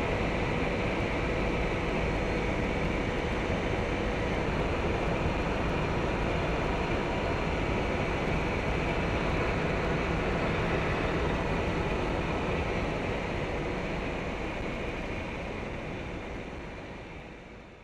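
Steady drone of an aircraft in flight, engine and air noise with a couple of faint steady tones running through it, fading out near the end.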